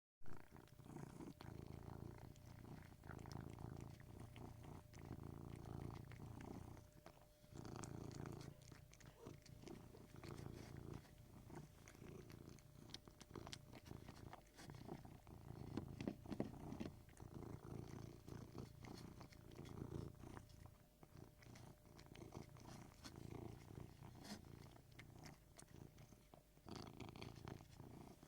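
Domestic cat purring, quiet and continuous, swelling and easing in cycles every few seconds with its breathing.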